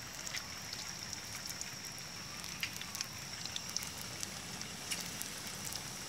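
Batter pakoras deep-frying in hot ghee in an aluminium karahi: a steady sizzle with many small crackles and pops.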